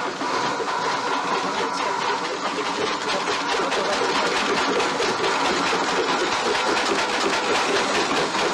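Water mill machinery running: a steady clattering rumble.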